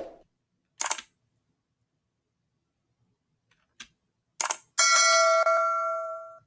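A few short clicks, then a bell-like chime rings once, several steady tones together, fading away over about two seconds.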